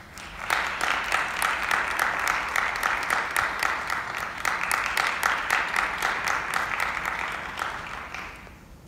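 Small audience applauding, with many separate claps heard, dying away shortly before the end.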